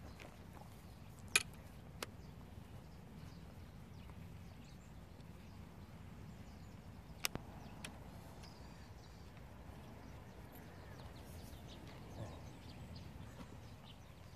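Quiet outdoor ambience: a steady low rumble with a few sharp single clicks, about a second and a half in, at two seconds, and twice around seven to eight seconds in.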